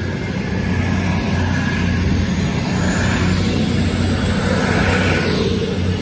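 CrossCountry Class 221 Super Voyager diesel multiple unit passing close by: a steady, loud mix of underfloor diesel engines running and wheels on the rails, swelling slightly around the middle.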